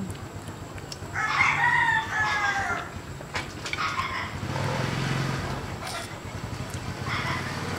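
A rooster crowing once: a single long call of nearly two seconds, falling slightly in pitch toward its end.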